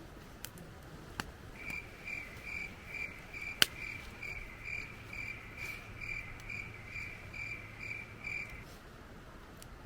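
An insect, cricket-like, chirping steadily at about two short chirps a second, stopping near the end. A few sharp clicks, the loudest one about three and a half seconds in.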